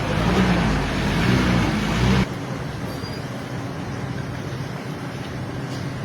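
Motor vehicle and road traffic noise with a low rumble, cutting off abruptly about two seconds in to a quieter, steady street background.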